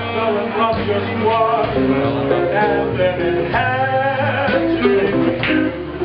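Live music: a man singing into a microphone, accompanied by guitar.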